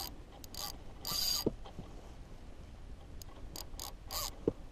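Spinning reel clicking and ratcheting in short, uneven bursts under the load of a freshly hooked fish pulling on the bent rod.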